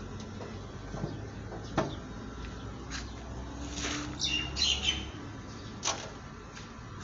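Workshop background: a low steady hum with a few scattered light knocks and clicks, and a short run of high chirps about four and a half seconds in.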